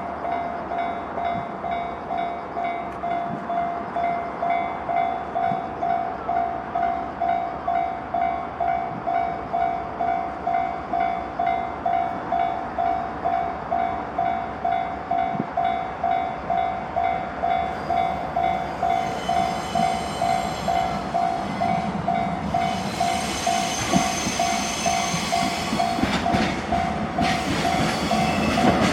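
Japanese railway level crossing's electronic warning bell ringing steadily in an even, repeating ding at a little under two strikes a second. A train approaches and passes through the crossing in the second half, its rushing noise building from about two-thirds in and ending in wheel clatter.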